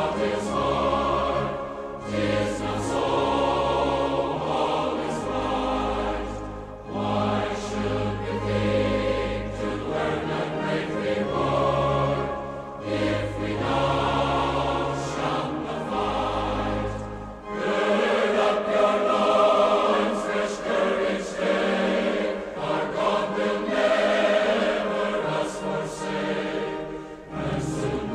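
Choir singing in harmony over a low bass. The bass drops out about two-thirds of the way through, leaving the upper voices alone, and comes back near the end.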